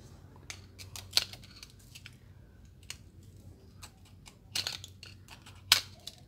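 Metal screwdriver clicking and scraping against the brass cylinder bores of a pressure washer pump head while prying at the piston seals, with a few sharper clicks, the loudest near the end.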